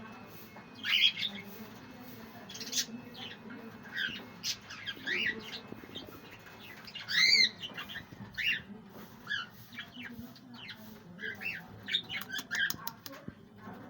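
Budgerigars calling in short, irregular squawks and chirps, loudest about a second in and again about seven seconds in, over a faint steady low hum.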